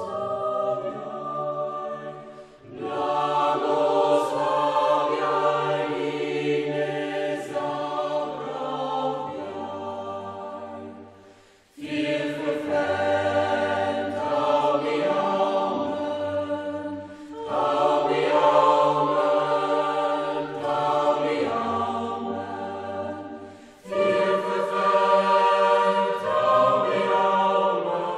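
A choir singing sustained notes in long phrases, with brief pauses between phrases.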